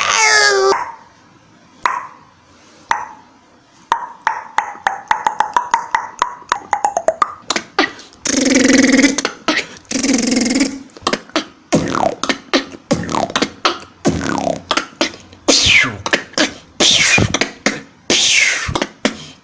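Beatboxer making sound effects with his mouth. Sparse clicks lead into a quickening run of clicks over a slowly falling tone, then come two loud hissing blasts. A busy stretch of clicks, pops and falling sweeps follows.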